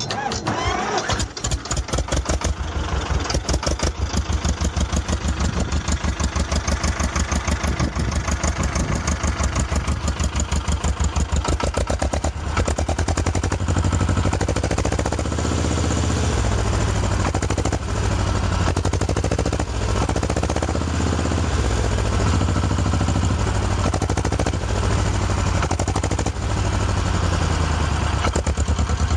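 Ursus C-330 two-cylinder diesel tractor engine starting up at the beginning, then running with an even beat. Its exhaust goes out through a straight-through bass car muffler mounted upright as the stack, which gives a light bass note.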